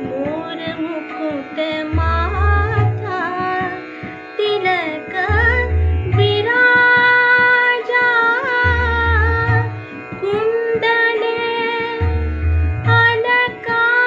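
Woman singing a Hindustani classical bhajan, with long held notes that slide and bend between pitches. Beneath her is a steady drone, and low tabla strokes return about every three and a half seconds.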